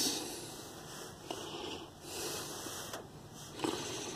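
A man breathing heavily close to the microphone, with a noisy breath in or out about every second.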